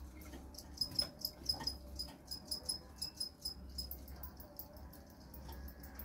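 Crickets chirping in a quick series of short, high chirps, about four or five a second, with a few sharp taps among them.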